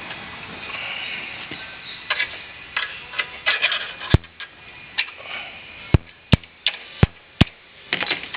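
Light metallic clicks and rattling from the rear brake assembly, then five sharp knocks over about three seconds in the second half. A part held on by two pins is being worked off past a small metal bracket.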